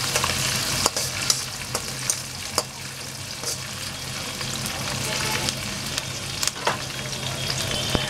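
Green chillies, garlic and curry leaves sizzling steadily in hot oil in a steel kadhai while a spatula stirs them, with scattered sharp clicks and scrapes against the pan, more frequent in the first few seconds.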